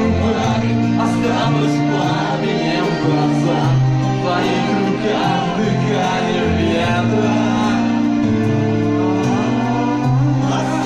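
Karaoke: a voice singing into a microphone over a music backing track with a steady bass line.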